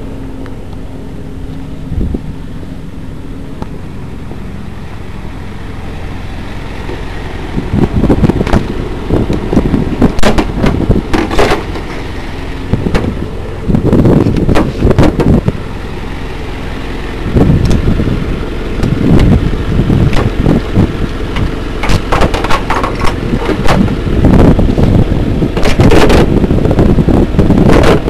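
Ratchet tie-down straps being released on a car-transporter truck: bursts of clanking, rattling and knocks, repeated over many seconds, starting about eight seconds in, over a steady low hum.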